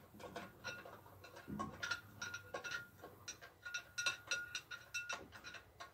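Aluminium resin vat of a Longer Orange 10 resin 3D printer being worked loose and out by hand: a run of irregular light clicks and short squeaks, busiest in the second half.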